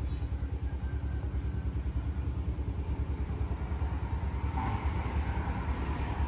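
A steady low rumble with a fast, even throb.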